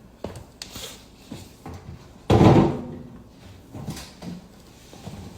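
Several small clicks and knocks, then one loud thump a little over two seconds in that fades out quickly.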